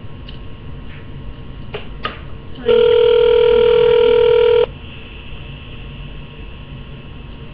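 Telephone ringback tone played through a phone's speaker: one two-second burst of the steady ringing tone about three seconds in, with line hiss and a couple of faint clicks in the silence before it. The called phone is ringing and has not yet been answered.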